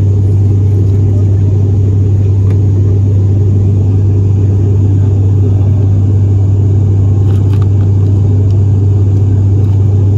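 Cabin noise of an ATR 72-600 turboprop: a steady, loud propeller drone from its Pratt & Whitney PW127-series engines, one constant low hum over a dense rumble.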